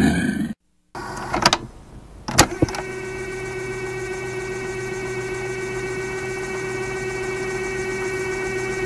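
An animal roar sound effect, a crocodile roar, ends about half a second in. After a short gap, a few sharp clicks and swishes lead into a steady mechanical hum that holds level to the end.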